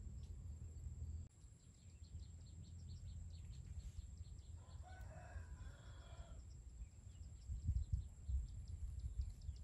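A rooster crows once, about five seconds in, for just under two seconds, over a quick faint high chirping. A low rumble runs underneath, with a few louder low thumps near the end.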